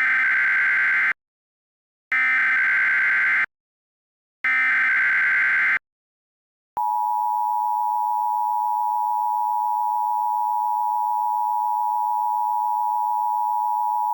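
Emergency Alert System header: three short bursts of warbling digital data tones, followed about a second later by the long, steady EAS attention tone, which cuts off suddenly near the end.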